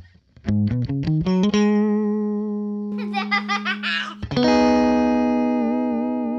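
Electric guitar played loud through a Teisco Boost pedal: a few quick picked notes, a long sustained note, then a strummed chord about four seconds in that rings out and slowly fades.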